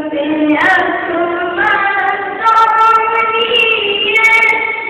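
A boy singing a naat, an Islamic devotional song, solo and unaccompanied, with long held notes that glide from one pitch to the next.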